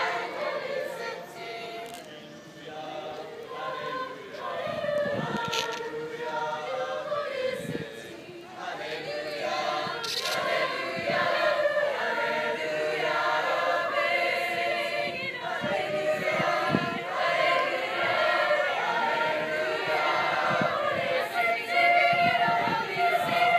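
A large youth choir of mostly girls' voices, with some boys' voices, singing together in held chords, growing louder near the end.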